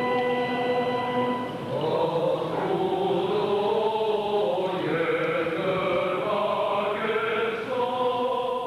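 Armenian Apostolic liturgical chant, sung without accompaniment. Long held notes give way about a second and a half in to a slowly moving melody.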